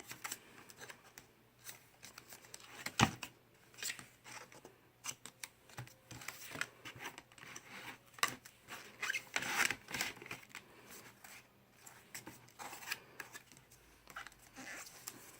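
Pages and flaps of a Usborne Look Inside Space lift-the-flap book being opened and unfolded by hand: irregular rustling of stiff paper and card with scattered light clicks and flaps, the sharpest click about three seconds in.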